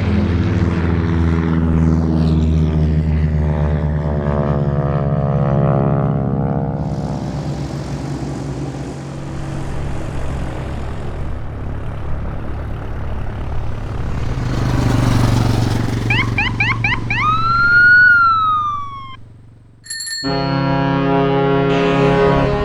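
A sequence of transportation sound effects: an engine drone whose pitch slowly falls as it passes, a stretch of rushing noise, a siren wailing up and then down about sixteen seconds in, and, after a brief drop, a steady engine running.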